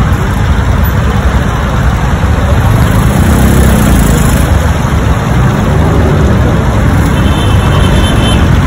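Steady traffic noise from a busy city avenue: a constant low rumble of passing cars.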